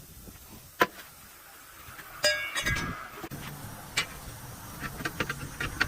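Steel clinking against steel: a sharp knock about a second in, a ringing metallic clang a little after two seconds, then scattered light clinks over a low steady hum that starts midway.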